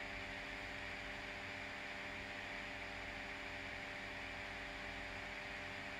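Steady electrical mains hum, a stack of even tones, with a faint constant hiss underneath and nothing else happening.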